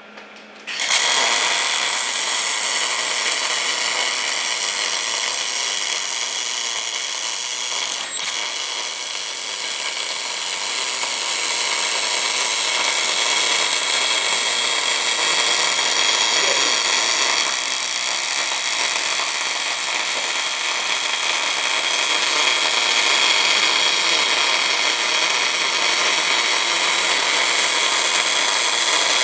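MIG welding arc on cast iron hissing and crackling steadily during an orbital weld pass. It starts about a second in, with a brief click about eight seconds in.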